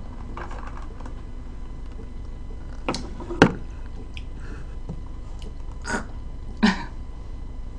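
Faint sipping through a straw from a glass mason-jar mug, then a few short sharp clicks and knocks of things handled on the table, the loudest about three and a half seconds in, over a steady low room hum.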